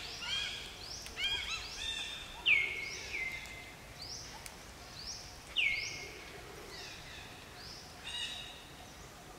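High-pitched animal calls, about a dozen short chirps, each sweeping quickly down in pitch, some holding briefly at the bottom. The two loudest come about two and a half and five and a half seconds in, and the calls thin out near the end.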